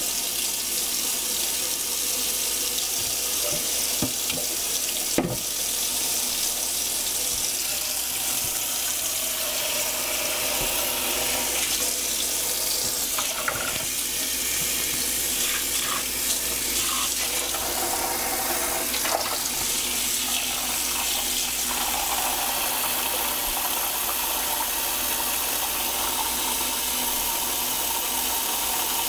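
Kitchen tap running hot water in a steady stream into a stainless steel sink and a bowl, with splashing as wet wool yarn is squeezed and rinsed under it.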